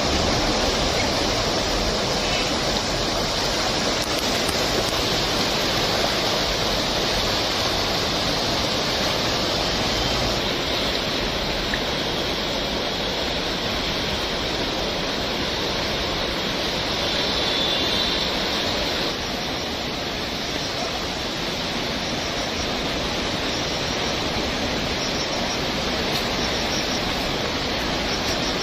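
Alaknanda River water rushing in a steady, continuous roar, dipping slightly about two-thirds of the way through.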